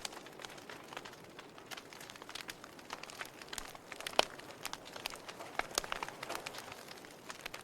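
Wood fire burning in a fireplace, crackling with irregular pops and snaps over a soft hiss. The loudest pop comes about four seconds in.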